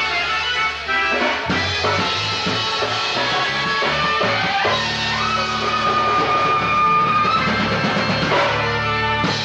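A live band playing an instrumental passage with drums, bass and guitar, including a long held high note in the middle.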